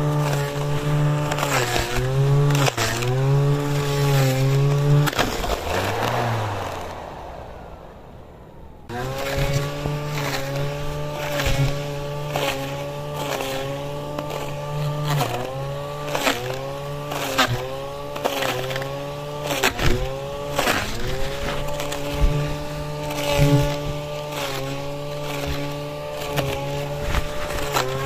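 Petrol string trimmer (brush cutter) engine running fast while cutting grass, its pitch dipping briefly and recovering again and again as the line bites into the grass, with scattered sharp ticks. About five seconds in the engine winds down and fades, then cuts back in suddenly at full speed about nine seconds in.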